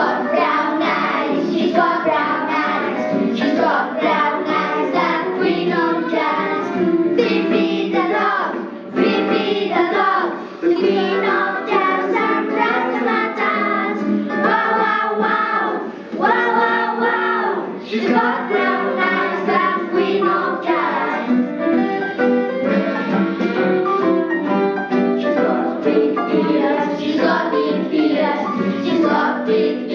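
A small group of children singing a song together, with instrumental backing.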